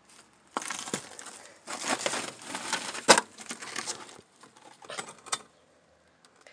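Footsteps crunching and scraping on debris-strewn wooden attic floorboards, in several short bursts, with one sharp knock about three seconds in.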